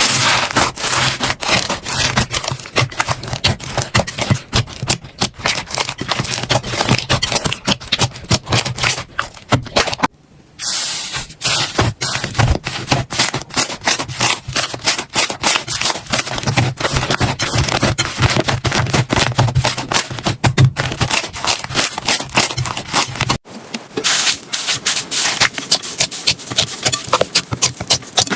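Slime being squeezed and worked by hand, making dense rapid crackling and popping clicks. The sound breaks off briefly about ten seconds in and again near twenty-three seconds.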